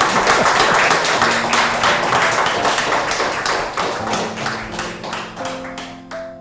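A small group of people clapping and applauding, dying away over the last second or two.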